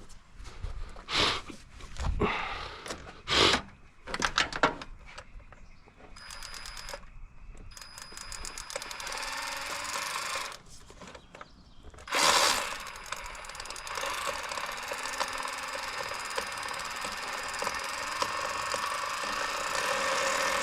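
Clicks and knocks of hand work, then a faint repeating chime. About twelve seconds in, a Subaru engine starts with a sudden loud burst and settles into a steady idle, its test run on a new cylinder 4 spark plug.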